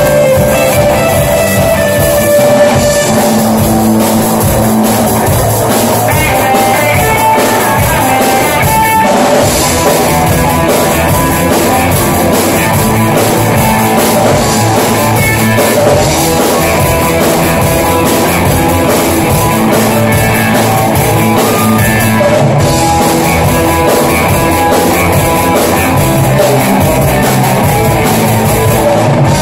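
Rock band playing live: distorted electric guitars, bass and drum kit in a loud, continuous full-band passage, heard from the audience in the hall.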